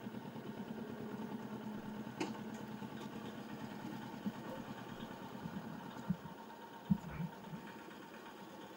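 Kawasaki Ninja 650's parallel-twin engine idling with a steady pulsing rumble that fades away about six seconds in, followed by a few light knocks.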